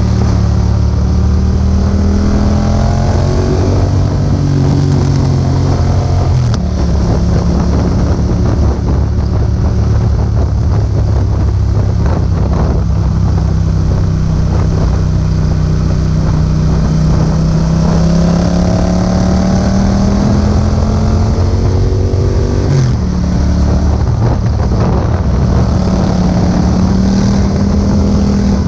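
2018 Yamaha MT-07's parallel-twin engine running through an Akrapovič exhaust while riding. The engine note holds and climbs slowly, drops sharply about six seconds in and again near the end, then climbs again. Wind noise on the microphone runs throughout.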